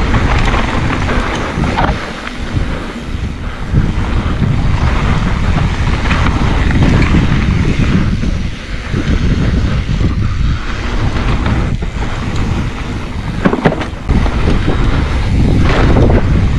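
Wind buffeting the microphone of a camera on a downhill mountain bike at speed, over the rumble of tyres and the bike rattling down a dirt singletrack, with a few sharp knocks from bumps, the clearest near the end.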